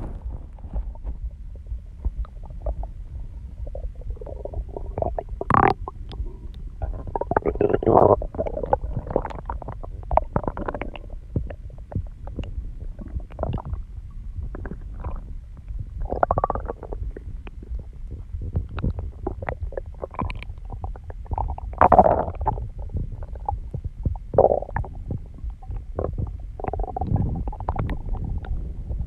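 Human stomach growling: irregular gurgles and rumbles, some short and some drawn out, over a steady low rumble, with the loudest gurgles about six, eight and twenty-two seconds in.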